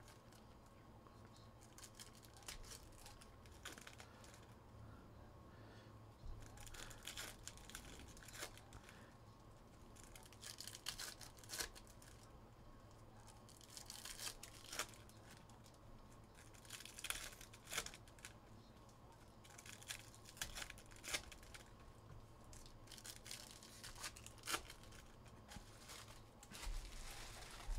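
Faint tearing and crinkling of trading-card pack wrappers, with cards being handled, coming in short scattered bursts with quiet gaps between.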